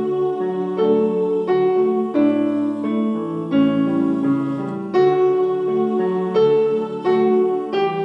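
Slow instrumental piano music: held chords, each giving way to the next every half second to a second.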